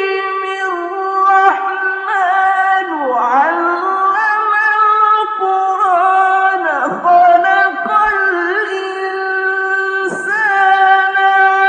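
A single high voice chanting in long held notes with winding, ornamented melodic runs, in the style of melodic Arabic Quranic recitation.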